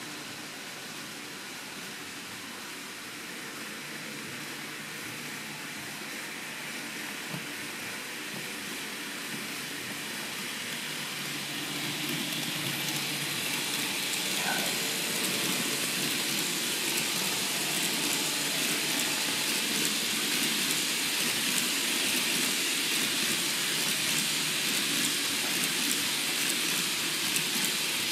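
N gauge model freight train running on the layout track: the locomotive's motor and the container wagons' wheels on the rails make a steady rattling hiss that grows louder as the train approaches, loudest from about halfway through.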